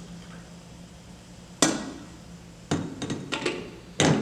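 Sharp knocks and clinks of a glass coffee carafe and a mug being handled and set down: one loud knock about one and a half seconds in, then a cluster of smaller knocks and another loud one near the end.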